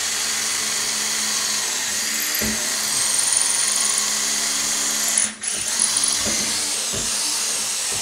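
Cordless drill running at speed, boring a hole straight through a cabinet drawer front. Steady whine that dips briefly about five seconds in, then cuts off sharply at the end.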